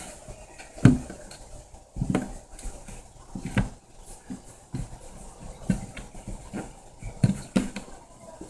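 Irregular thumps and knocks with rustling, about six in all, the loudest about a second in.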